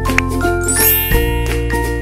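Background music: light chiming, bell-like melody over a steady bass, with a quick rising high shimmer about halfway through.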